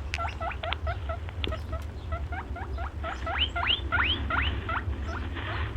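Rabbit squeaking: a quick run of short, high, upward-sliding squeaks, three or four a second, over a steady low hum.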